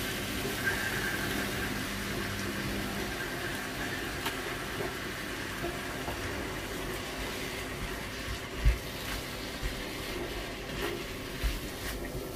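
Corned-beef and tomato sauce sizzling steadily in a frying pan as tomato coulis goes in. A dull knock comes about eight and a half seconds in, with a couple of lighter knocks near the end.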